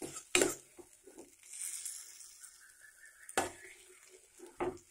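Steel spoon stirring and scraping grated mango pickle in a metal pan on the stove, knocking against the pan several times, with a faint frying hiss in the middle.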